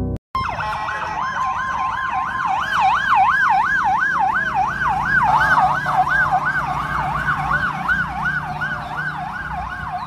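Emergency vehicle siren in a fast yelp, its pitch swinging up and down about three times a second. It starts suddenly just after a short gap near the beginning and grows a little fainter toward the end, over a low hum of traffic.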